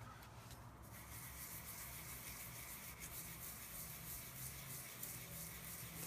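Faint soft rubbing and brushing: a large fluffy brush is dabbed into a pot of shimmer paint and swept across thin watercolour paper to shade it.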